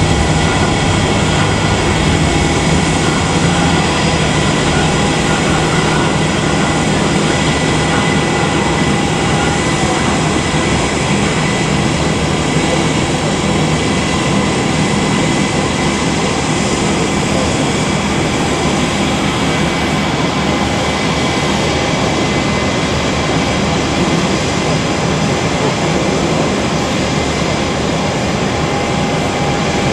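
Jet airliner engines running at idle: a steady rushing noise with a constant high whine.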